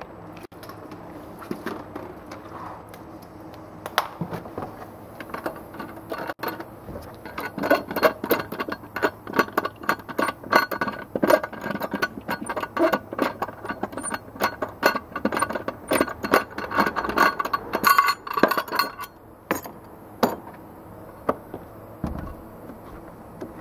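Rapid metallic clinking and rattling as a spare tyre's hold-down nut and its metal plate are spun off the threaded bolt by hand, running for about ten seconds before stopping. A few scattered knocks come before it and after it.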